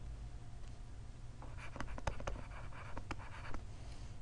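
Stylus writing on a tablet: two short runs of handwriting strokes with light ticks as the tip touches down, the first about one and a half seconds in, the second about three seconds in. A low steady hum runs underneath.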